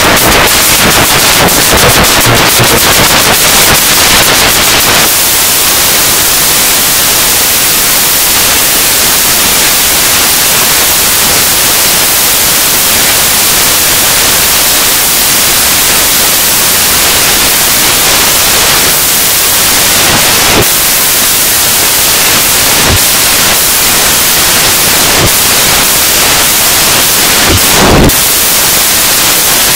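Loud, steady static hiss. It crackles densely for the first few seconds, with a few sharp clicks later, the loudest near the end.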